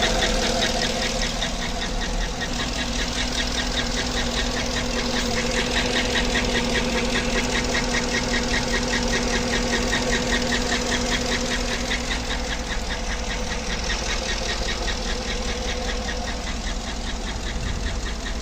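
GMC engine running steadily with a fast, even ticking from the valvetrain: a lifter tick, the problem the owner is showing.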